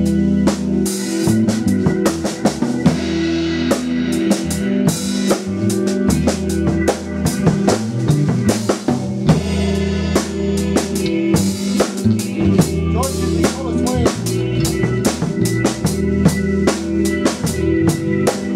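Live band playing an instrumental passage of a soul-blues song, without vocals: drum kit with kick, snare and rimshots over electric bass, Roland keyboard and guitar.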